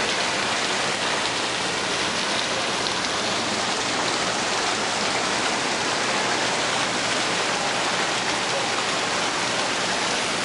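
Small garden waterfall splashing steadily into a rocky koi pond: an even, continuous rushing of falling water.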